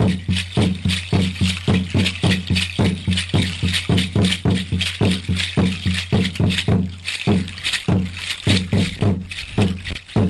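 Mexica dance music: a drum beating steadily, about three strokes a second, with a rattle shaking continuously over it.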